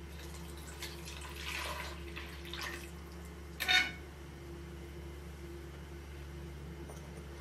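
Milky liquid pouring from a ceramic bowl into a metal cooking pot for about two seconds, then a wooden spoon scraping the bowl out in one short, sharp clatter. A steady low hum runs underneath.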